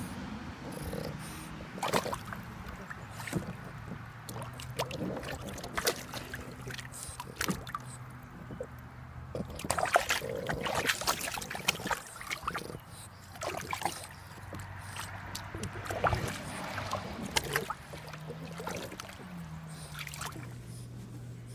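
Water splashing and sloshing in a plastic kiddie pool as a French bulldog wades and moves about in it, in irregular bursts that are busiest around the middle.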